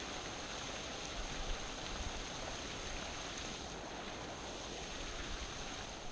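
Wind buffeting the microphone outdoors, a steady rushing hiss with low rumbling gusts about a second in and again near the end, over a thin steady high tone.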